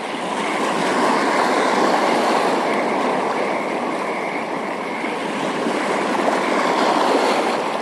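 Steady rushing of water at a rocky shoreline, with a continuous roar and no separate splashes.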